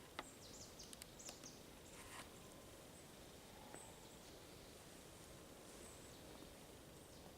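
Near silence: faint outdoor ambience with a few brief, high-pitched chirps, most of them in the first second and a half, and a faint rustle about two seconds in.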